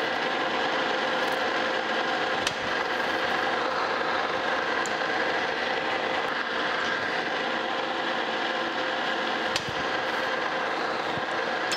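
Metal lathe running steadily under power feed, its gearing giving a steady whine, while a threading insert cuts a 13-threads-per-inch thread on a stud. A couple of faint clicks are heard in passing.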